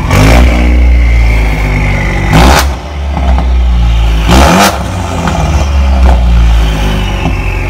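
Ford Mustang 2.3 EcoBoost turbocharged four-cylinder running through aftermarket exhaust piping, blipped three times, about two seconds apart, from a steady idle.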